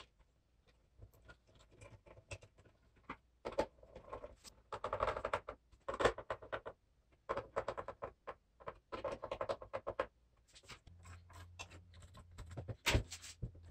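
Faint, scattered clicks, taps and scrapes of small hardware and circuit boards being handled and fitted by hand on a wooden shelf, in short clusters, with a sharper click near the end.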